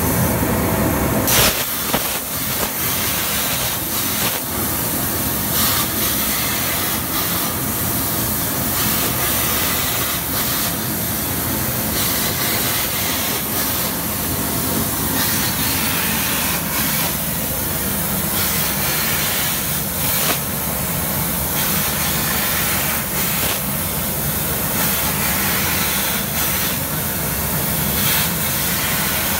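High-definition plasma torch on a CNC plasma cutting table cutting 8 mm mild steel at 130 amps with oxygen plasma and air shield gas: a loud, steady hiss of the plasma arc and gas jet.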